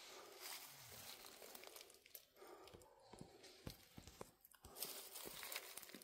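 Faint footsteps crunching and rustling through dry fallen leaves, in irregular crackles with a short pause a little past the middle.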